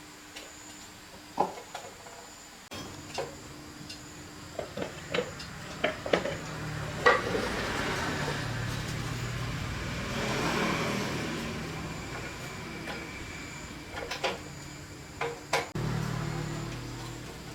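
Metal tools and parts clinking and knocking as they are handled, with a rushing noise that swells and fades in the middle.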